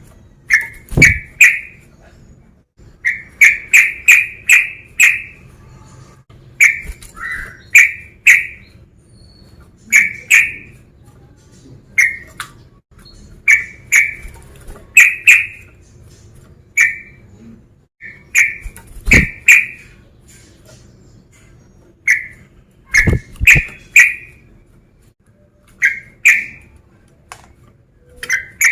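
Male sooty-headed bulbul (trucukan) singing loudly in full song: short bright phrases of two to five quick notes, repeated every second or two. The loudest notes break into sharp clicks.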